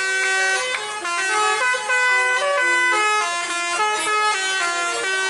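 Basuri musical horn on a tour bus playing a tune: a quick string of held horn notes stepping up and down in pitch, one after another with hardly a break.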